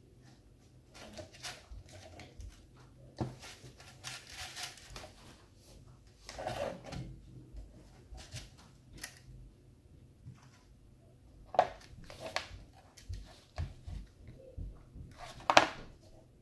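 Irregular handling noises as rhinestone trim is pressed onto a glitter-covered container: light clicks, taps and rustling, with two sharper knocks near the end.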